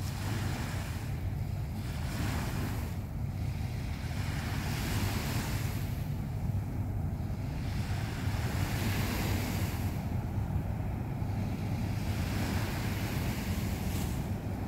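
Small waves washing on the shore, their hiss swelling and fading every couple of seconds over a steady low rumble.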